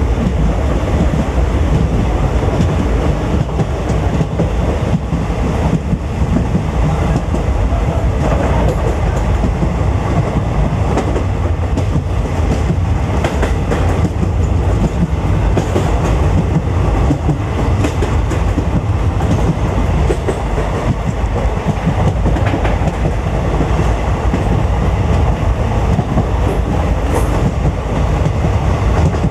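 Passenger train running, heard from aboard: a steady loud rumble of the coach with the wheels clacking over the rails.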